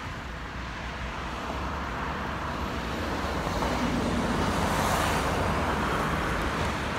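Steady rushing outdoor background noise that slowly swells to its loudest about five seconds in, then eases a little.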